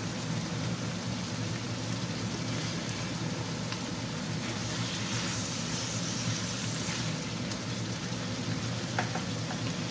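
Adobo sauce with chicken gizzards, tofu and long beans sizzling steadily in a nonstick frying pan as it simmers, stirred with a wooden spatula.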